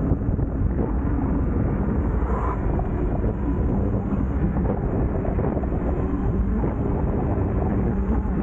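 Steady wind and road noise from riding an electric scooter: a constant low rumble of tyres and air over the microphone, with no break.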